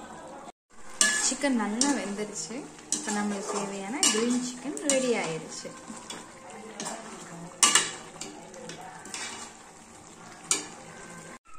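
Metal ladle stirring thick chicken gravy in a metal pot, scraping and clinking against the pot with several sharp knocks.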